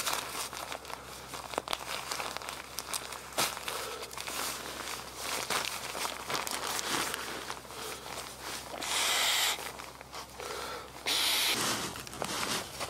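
Crinkling and rustling of an Exped sleeping pad's nylon fabric as it is unfolded and shaken out, with many small clicks. Two louder, brief rushing hisses come near the end.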